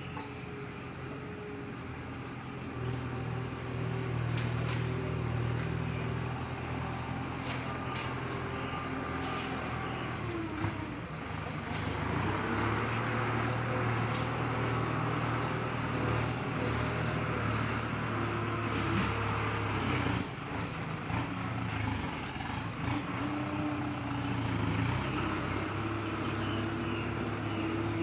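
A motor vehicle's engine running steadily with a low hum, its pitch dipping and then rising again about ten seconds in.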